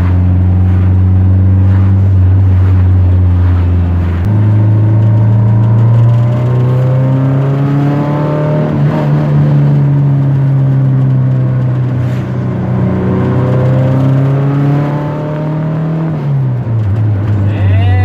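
Fiat 147's four-cylinder engine running through a cheap homemade modified exhaust, heard from inside the cabin while driving. About four seconds in the engine note steps up in pitch, climbs slowly for the next twelve seconds, then drops back near the end.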